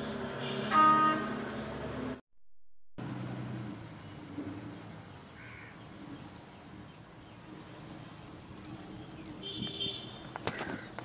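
Outdoor background noise with a short, loud vehicle horn toot about a second in. The sound cuts out briefly just after two seconds, then goes on more quietly with a few faint calls and clicks.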